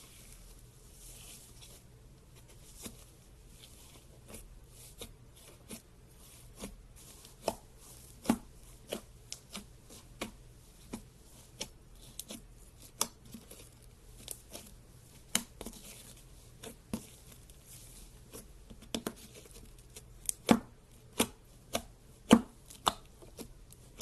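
Slime being squeezed and poked, making sharp clicking pops at irregular intervals, about one a second, louder in the last few seconds.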